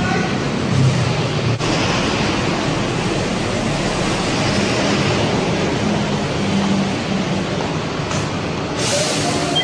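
Steady road traffic noise from vehicles going by, with a short burst of hiss near the end.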